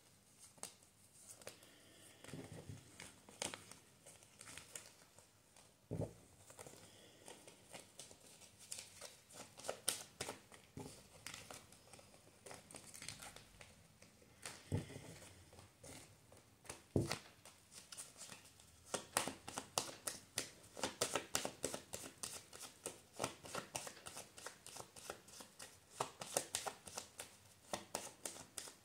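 Tarot cards handled and shuffled by hand: scattered flicks and taps of cards at first, then, from about two-thirds of the way in, a long run of quick card-on-card snaps as the deck is shuffled.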